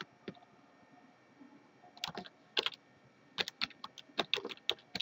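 Typing on a computer keyboard: a couple of keystrokes about two seconds in, then a quicker run of keystrokes over the last second and a half.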